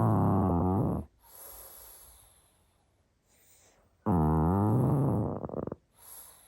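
Pug snoring: a loud, low buzzing snore that ends about a second in, followed by a soft breathy breath. A second snore of nearly two seconds starts about four seconds in, followed by another soft breath.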